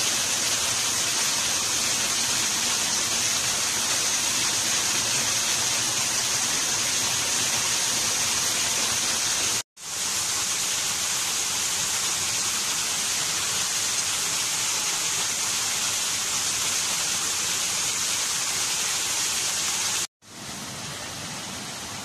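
Waterfall: a steady rush of falling water splashing onto rock. It cuts off briefly twice, about ten and twenty seconds in. After the second cut it is quieter: a smaller cascade farther away.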